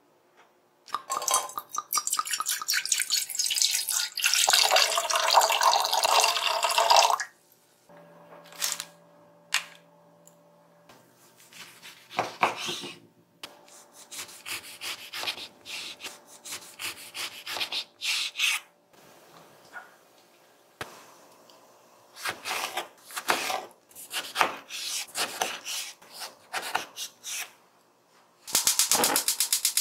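Liquid running into a saucepan for several seconds. Then a series of knife cuts through an orange on a wooden cutting board, heard as irregular short slicing strokes and taps on the board.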